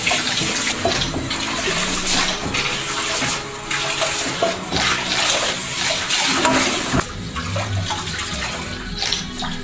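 Water spraying from a salon backwash basin's handheld shower head onto wet hair and splashing into the basin as the hair is rinsed, easing off about seven seconds in.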